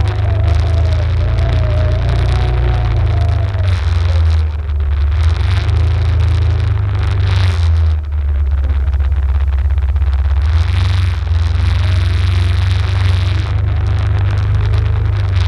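Arctic Cat ATV engine running while riding a rough, muddy trail, its pitch rising and falling with the throttle, over a heavy low rumble and a rushing hiss.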